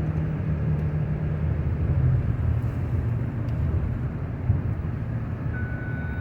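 Vehicle driving on the road: a steady low rumble of engine and road noise, with one sharp knock about four and a half seconds in.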